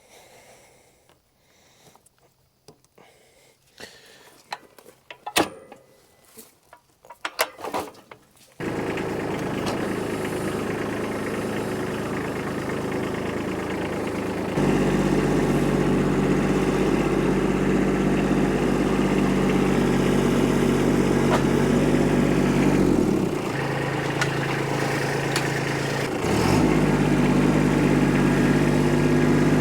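A few scattered clicks and knocks, then an engine suddenly comes in running steadily about a third of the way in. It steps up in speed and loudness a few seconds later, drops back briefly in the last third, and revs up again near the end.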